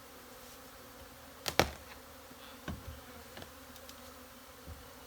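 A mass of honeybees from an exposed wild colony buzzing in a steady hum; the bees are agitated ('hot'), fairly aggressive. A few sharp knocks break in, the loudest about a second and a half in.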